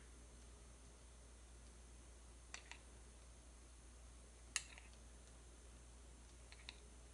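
A few faint clicks of a metal spoon against a small glass bowl of melted chocolate: a pair about two and a half seconds in, a sharper single click a little past the middle, and another pair near the end, over near-silent room tone.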